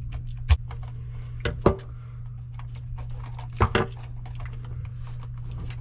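Irregular clicks and taps of a screwdriver and wires being handled at a GFCI outlet's terminals, with louder knocks about half a second, a second and a half, and three and a half seconds in, over a steady low hum.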